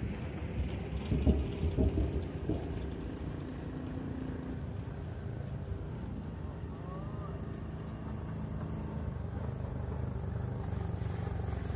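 An engine running steadily at a low, even pitch, with a few louder knocks in the first three seconds.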